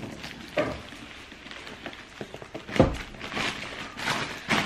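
Plastic wrap on a cardboard shoebox crinkling and scratching as it is slit open with a box cutter. Two louder knocks against the box come about three seconds in and near the end.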